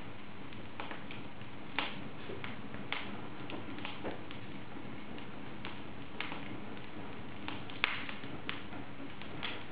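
Wood fire burning in an open fireplace, crackling with irregular sharp pops and snaps over a steady hiss of flame.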